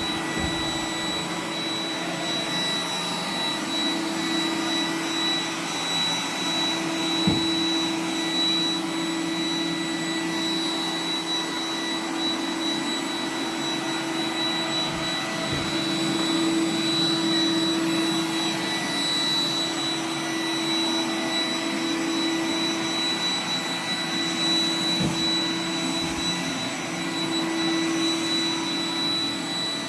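iRobot Roomba 980 robot vacuum running: a steady motor hum with a high whine, broken by a few short knocks.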